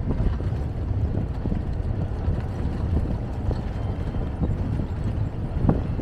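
Low, irregular rumbling of wind buffeting the microphone, with a few short knocks near the end.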